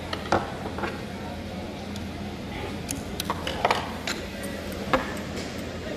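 Scattered sharp metallic clicks and taps from hands and tools working on the trimmer-knife mechanism under a Jack A4 lockstitch industrial sewing machine, over a steady low hum.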